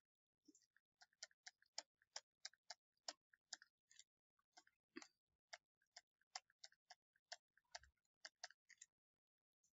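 A stylus tip tapping and clicking on a tablet screen while handwriting, a faint quick run of small clicks several times a second, pausing briefly near the end.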